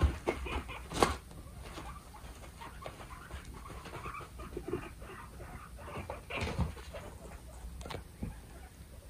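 Two guinea pigs in a dominance squabble: a quick run of sharp clicks and scuffles through the first second, then scattered ticks, with a louder outburst a little past the middle.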